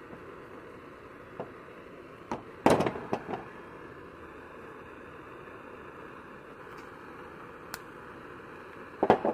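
Hand tools and a PVC tee fitting knocking and clicking against a table as the softened pipe stub is pried out: a short cluster of clatters about three seconds in, a single sharp click near the end, and another clatter at the very end, over a steady faint hiss.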